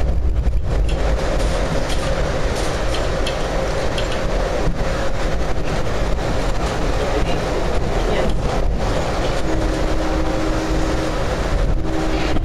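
Steady rumble and rush of an Amtrak Superliner passenger car running at speed, heard from inside the car, with faint clicks from the wheels on the rails. A faint steady hum comes in near the end.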